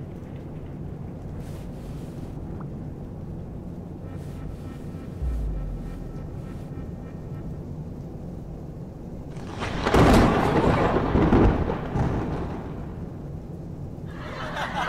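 Steady low drone of an airliner cabin, with a low thump about five seconds in. A loud burst of noise lasting about three seconds comes about ten seconds in.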